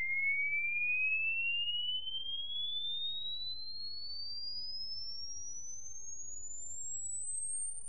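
Sine-wave frequency sweep played through a dome tweeter loaded with a 1.5 kHz horn: a single pure tone rising steadily in pitch, from a high whistle to a very high one.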